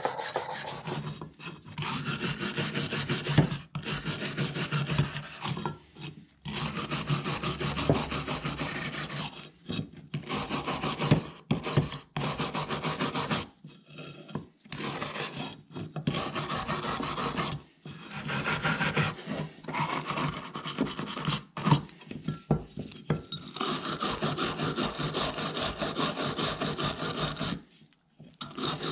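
Rust being scrubbed by hand off the metal cap of a vintage hand-crank ice cream freezer: runs of quick back-and-forth scraping strokes with short pauses between, stopping near the end.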